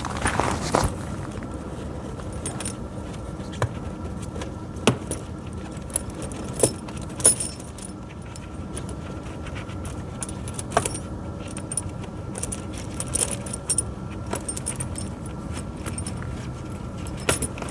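Steel pewag Doppelspur tractor tire chains being handled: links clinking and jingling, with scattered sharp clicks.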